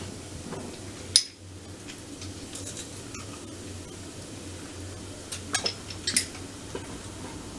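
Cooking utensils knocking against a stainless saucepan while vegetables are stirred: one sharp clink about a second in, then a quick cluster of lighter clicks a little past halfway, over a low steady hum.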